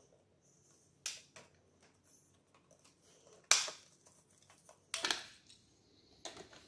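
Sharp plastic clicks and snaps of a VHS cassette's shell and front flap being worked apart by hand: a few separate clicks, the loudest about halfway through and a quick double click soon after.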